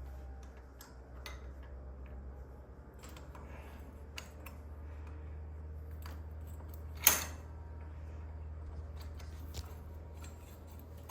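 Metal hardware and tools clinking and tapping while garage door torsion spring parts are handled, with one sharp, loud metal clank about seven seconds in. A steady low hum runs underneath.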